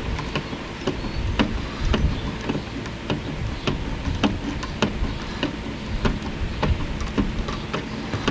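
Even, sharp clicks about twice a second as a screw is driven by hand into a plastic mount, over a low steady rumble.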